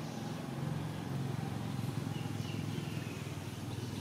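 Steady low outdoor rumble, like distant traffic, with faint high chirps over it.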